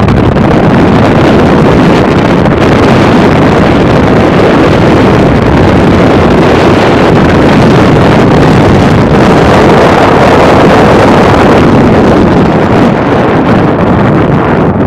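Heavy wind noise rushing over the microphone of a camera moving at road speed, with a vehicle engine running underneath, steady throughout.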